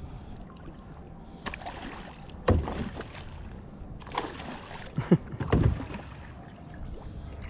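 A hooked fish thrashing at the surface beside a boat as it is landed: several sudden splashes between about two and a half and six seconds in, over low water and boat noise.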